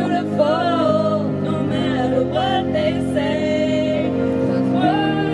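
A woman singing into a handheld microphone over an instrumental backing track, heard through a PA speaker.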